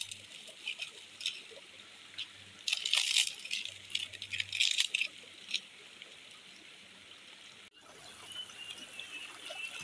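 A shallow stream trickling over rocks, with short bursts of rattling about three and four seconds in.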